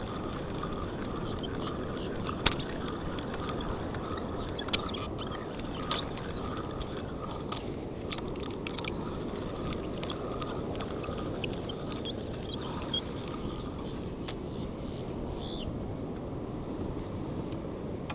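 Steady wind and sea noise with scattered light clicks and taps.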